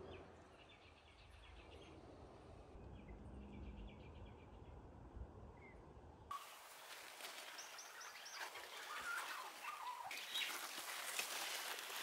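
Faint birdsong: rapid trilling chirps in the first half. Then, from a sudden change about six seconds in, a hissier outdoor background with scattered high chirps.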